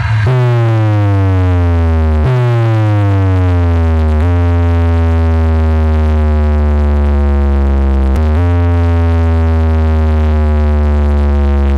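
DJ box speaker stack blasting a synthesizer bass-test tone: a deep, buzzy bass note that slides downward in pitch, restarts with a fresh drop about 2 and 4 seconds in, then is held long with a short break around 8 seconds. It is a bass test meant to shake the stacked brass pots off their table.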